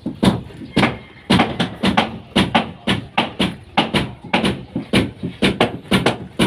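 Hammer blows struck over and over at a steady pace, about two a second, sharp knocks with a short ring after each.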